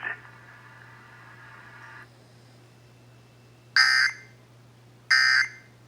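Emergency Alert System SAME data bursts: two short, loud, raspy digital chirps about a second and a half apart, the end-of-message code sent after the test announcement closes. Before them there is a couple of seconds of faint steady hum.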